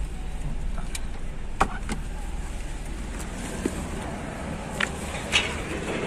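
Car idling in a queue with a steady low rumble, heard from inside the cabin. A few short clicks and knocks cut in, the first near two seconds in and more near the end.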